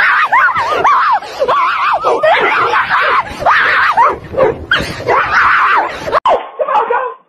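People screaming loudly in high, wavering cries. The sound breaks off abruptly about six seconds in, and different voices follow.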